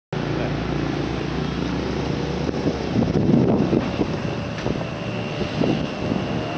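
Engine and road noise of a moving vehicle, with a wavering low hum that swells briefly about three seconds in.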